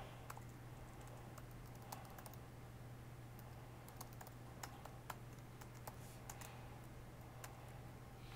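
Faint, irregular keystrokes on a laptop keyboard as code is typed, over a steady low hum.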